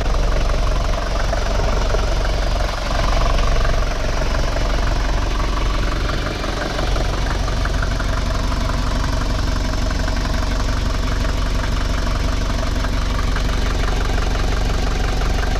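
Classic Mercedes-Benz diesel engine idling steadily.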